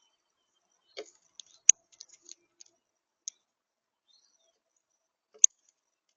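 Sharp clicks and ticks at a seed feeder: a quick cluster of small ticks about a second in, then a loud single click near the end.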